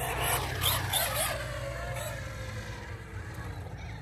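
Whine of an electric RC truck's motor, dropping steadily in pitch over the first second and a half, over a steady low rumble.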